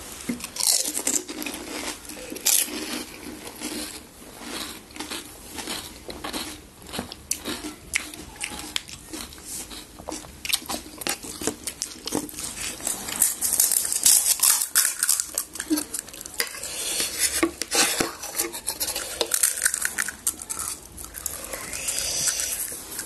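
Pani puri being eaten: crisp puri shells cracking and crunching, with dishes and cutlery clinking, as a dense run of small clicks and crackles.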